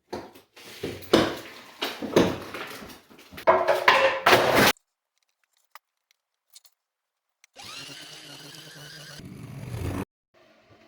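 Tool work on masonry: a run of clattering knocks and scrapes for several seconds. After a silent gap, a steady machine whir starts and cuts off suddenly.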